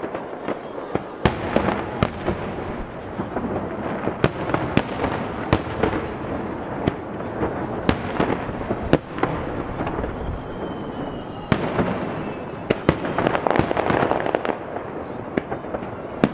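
Aerial fireworks shells bursting one after another: many sharp bangs, one or two a second, over a continuous crackling rumble, with a faint falling whistle about ten seconds in.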